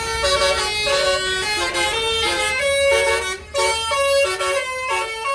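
Bus 'telolet' basuri melody horn playing a quick tune of stepping notes, with a short break about three and a half seconds in, over the low rumble of the bus's engine.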